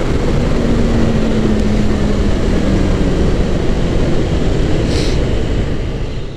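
Suzuki GSX-R600 inline-four sportbike running at a steady cruise on the move, its engine and exhaust note mixed with heavy wind rush. The engine note sinks slowly over the first few seconds, and the sound fades out at the very end.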